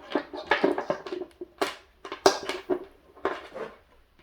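Irregular series of knocks and clatter, a few strikes a second, like hard objects being handled and set down.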